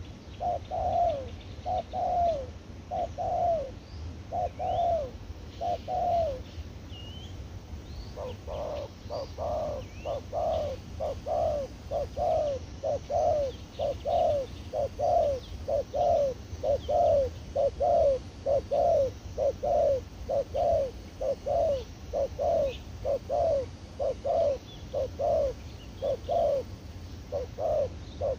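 Spotted dove cooing in a long run of short, falling coos: five about a second apart, a pause of about two seconds, then a steady, quicker series to the end. Faint chirps of small birds are heard over a low rumble.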